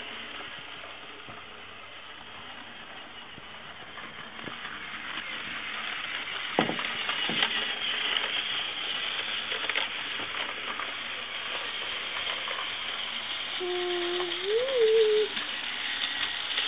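Battery-powered toy train engine running on plastic toy track: a steady whirring rattle from the small motor and wheels that grows louder as the engine comes nearer. Two short knocks come a little past halfway.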